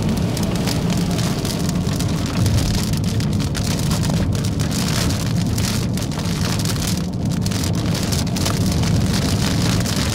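Rain beating steadily on a moving car, over the low rumble of road and engine noise inside the cabin.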